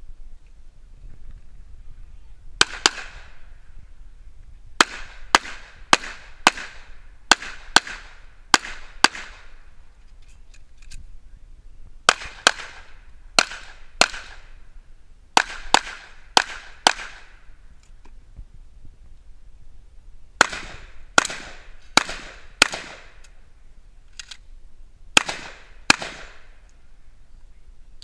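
Handgun shots fired by a competitor running a stage: about two dozen sharp cracks, mostly in quick pairs and short strings, with pauses of a second or more between groups as the shooter moves between ports and positions. Each shot has a brief echo.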